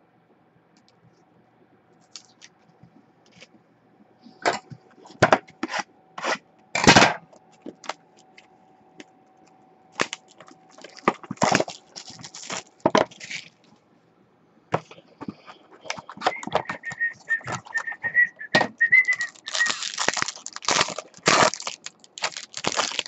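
Trading cards, clear plastic card holders and a foil pack wrapper being handled and torn open: a run of sharp crackles, knocks and rustles that grows busier in the second half. A brief wavering, whistle-like high tone sounds about two-thirds of the way in.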